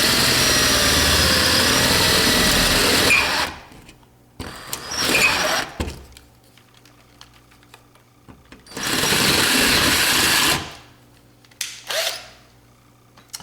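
Power drill with a 3/8 inch bit running in bursts, enlarging a 1/8 inch pilot hole in a patio door to 3/8 inch: a long run that stops about three seconds in, a short burst, then another run of about two seconds later on.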